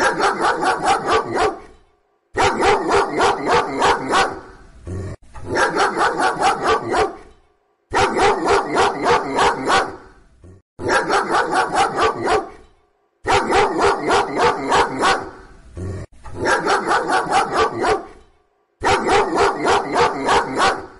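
A dog barking in quick runs of about eight barks each. The run comes eight times with short pauses between, like the same recording repeated.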